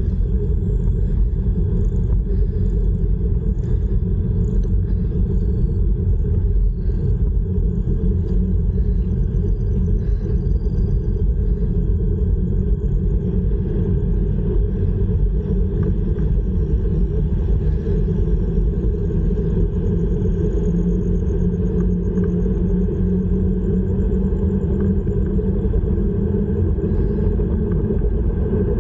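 Steady wind rumble buffeting an action camera's microphone while it is carried along on a moving bicycle.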